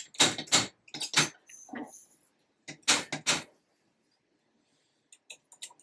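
Powder measure being cycled by hand to throw a rifle powder charge into a scale pan: a quick run of sharp clacks from the handle and metal drum, with a light rustle of powder between them, then a few lighter clicks near the end.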